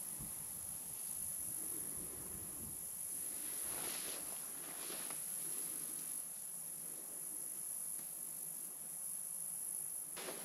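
Steady, high-pitched buzz of insects in summer grassland. A few brief swishes of footsteps through tall grass come about four and five seconds in and again near the end.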